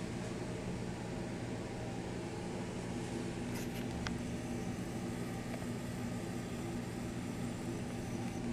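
Steady electrical hum of commercial kitchen machinery, with one faint click about four seconds in.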